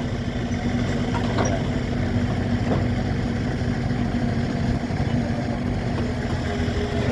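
Heavy-equipment diesel engine idling steadily.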